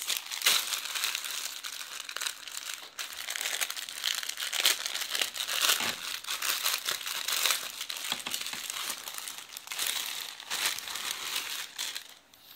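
Plastic packaging crinkling and rustling as a parcel's plastic mailer bag and the clear plastic bag inside it are handled, with irregular sharp crackles; it dies down near the end.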